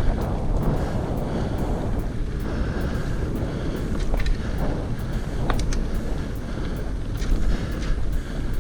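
Wind buffeting the microphone of a bicycle-mounted or rider-worn camera during a ride, over a steady low rumble from the bike rolling along, with a few faint clicks.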